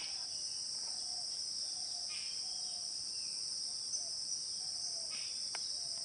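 Steady, high-pitched insect chorus, a continuous drone held at two pitches, with faint short bird calls now and then.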